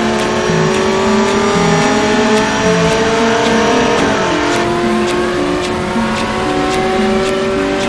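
Several car engines droning together, their pitches slowly gliding and rising. A regular ticking runs over a stepping low pulse underneath.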